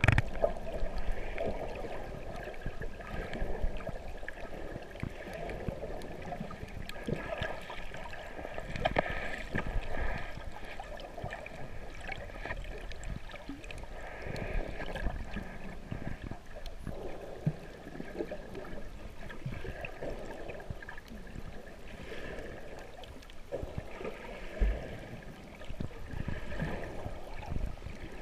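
Water sloshing and gurgling, muffled as heard by a camera held underwater, with many small irregular knocks and a faint steady hum.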